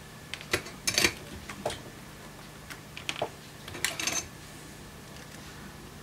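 Small clicks and taps of a circuit board, wire leads and soldering iron being handled on a workbench: a cluster about half a second to one second in, another around three to four seconds in, over a faint steady hum.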